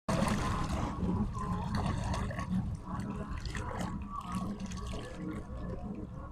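Water splashing and sloshing over a steady low rumble, with scattered small clicks.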